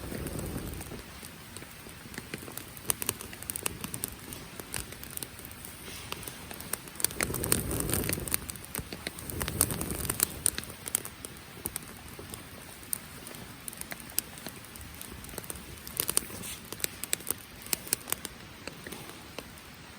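Campfire of damp firewood crackling, with frequent sharp pops and snaps, over a steady hiss of falling rain. A low rushing swell rises about halfway through.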